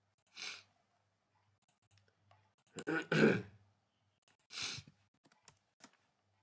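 A man clears his throat once about three seconds in, with a short breath before and after it. A few faint clicks follow near the end.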